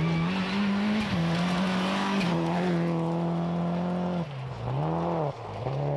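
Toyota Celica Group A rally car at full throttle on a gravel stage, its engine note held high with a couple of quick gear changes. About four seconds in the note drops and dips twice as the driver lifts off, then it climbs again.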